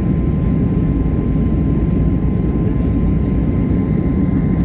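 Steady cabin noise of a jet airliner in flight: a deep drone of engines and rushing air, with a faint steady whine above it.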